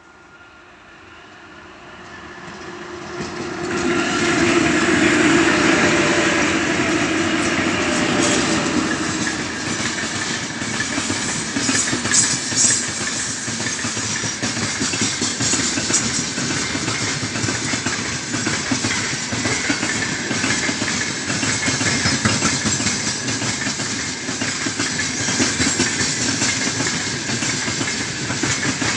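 Freight train hauled by two 2ES5K 'Ermak' electric locomotives passing close by. It grows quickly louder over the first four seconds as the locomotives arrive, then the open gondola wagons roll past with a steady rumble and the clickety-clack of wheels over the rail joints.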